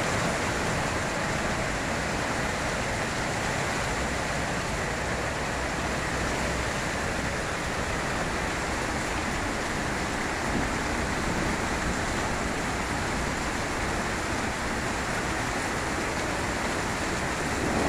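Hail and rain pouring down steadily onto pavement, cars and the porch: a dense, even hiss with no let-up.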